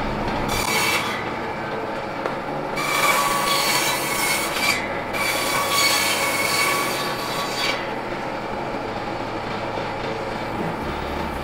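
Table saw cutting into the wooden shoulder of a cricket bat to take out the broken handle for a new one. The cutting comes in three passes, a short one about half a second in and two longer ones from about three to seven and a half seconds, each with a rasping whine, and the saw runs freely in between.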